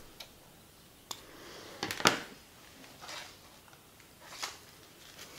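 Small clicks, taps and rustles of fishing tackle and tools being handled on a work table, with a sharper knock about two seconds in.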